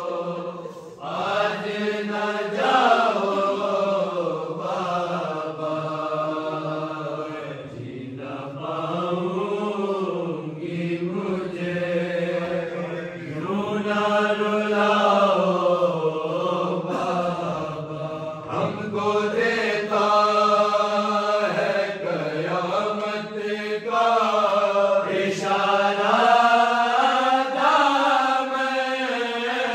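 Group of men chanting a noha, a Shia lament for the martyrdom of Imam Ali, together without instruments, in long sung phrases that rise and fall with short breaths between them.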